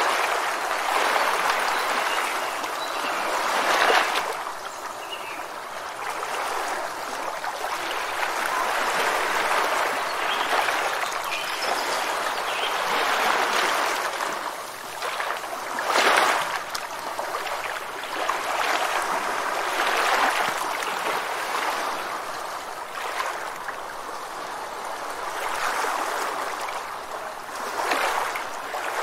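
Running water, a steady rush that swells and eases every few seconds, with a few faint bird chirps in the first seconds.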